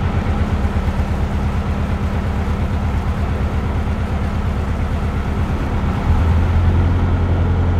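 Narrowboat's 1.5 BMC four-cylinder diesel engine running steadily, then getting louder about six seconds in.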